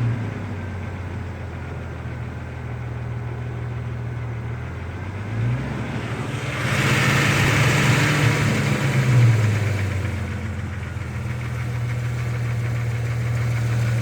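1996 Jeep Grand Cherokee ZJ's 4.0-litre inline-six engine idling, blipped briefly about five and a half seconds in, then revved for about three seconds before it drops back to idle. It carries the noise that appeared after a new exhaust manifold was fitted.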